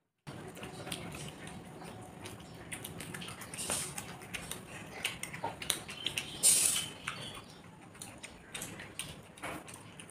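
Close-up eating sounds of two people eating rice by hand: chewing and mouth clicks, and fingers working rice on metal plates. There is a short hiss about six and a half seconds in.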